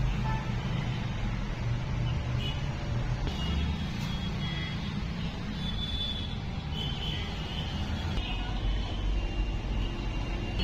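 Background road traffic: a steady low rumble, with a few faint high tones now and then.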